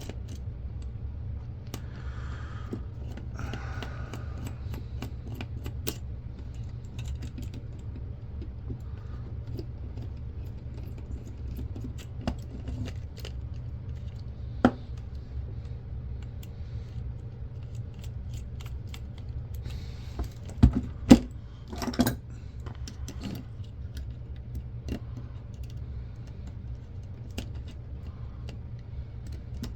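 Small clicks and rattles of a screwdriver and the plastic and metal parts of a 1982 General Electric camcorder being handled during disassembly, with a few sharper knocks, several close together about two-thirds of the way through, over a steady low hum.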